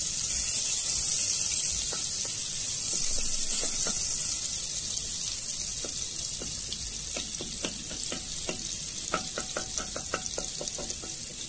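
Butter sizzling as it melts in a stainless steel pot, stirred with a wooden spoon, the start of a béchamel roux. The hiss slowly eases off, and a run of small clicks comes in the second half.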